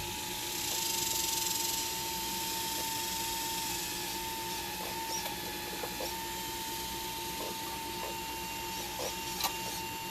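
Hydraulic pump of an RC Liebherr 954 model excavator whining steadily, its pitch dipping briefly several times, over a hiss and light clicks, with one sharp click near the end.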